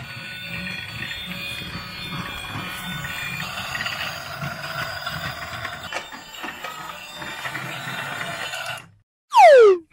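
Battery-powered toy train running on plastic track: a steady motor whir with the wheels rattling over the track. It cuts off about nine seconds in, and a loud, sharply falling tone follows near the end.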